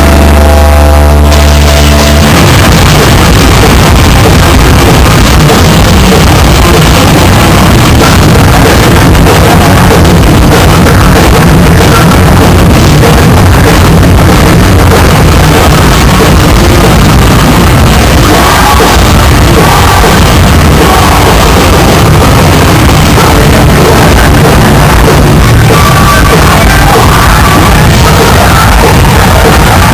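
Hardcore punk band playing live, recorded so loud that it overloads the microphone into heavy distortion. A held chord rings for about the first two seconds, then the full band crashes in with a shouting vocalist.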